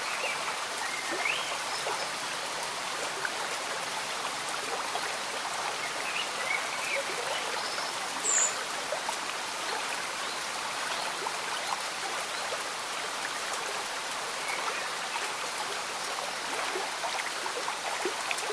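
A slow stream bubbling and trickling under steady gentle rain, a constant water hiss. A few short, high chirps sound over it, the loudest and highest one about eight seconds in.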